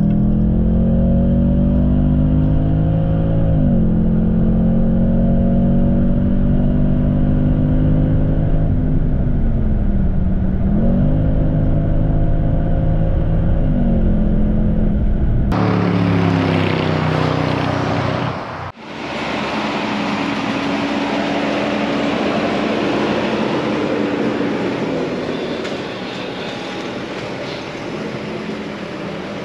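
Jaguar XFR's supercharged 5.0 V8 running hard, its revs falling and climbing several times. After about 15 seconds the sound cuts to a steady rushing of wind and road noise with a faint engine note underneath.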